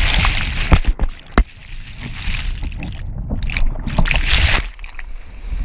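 Churning white water rushing and splashing around a playboating kayak, with a couple of sharp knocks in the first second and a half. As the microphone goes under, the sound turns dull and muffled about three seconds in, then the water noise comes back before dropping away near the end.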